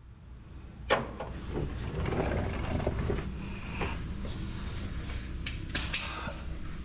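Rustling and metallic clinking of hand tools and small hardware being handled, with a sharp click about a second in and a few sharp knocks near the end.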